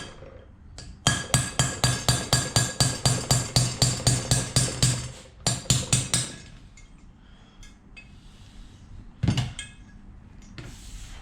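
Fast run of ringing metal-on-metal hammer blows, about five a second, knocking the old valve guides out of a VW Polo BAH cylinder head. The hammering stops about five seconds in, with a short burst more just after, and one single knock near the end.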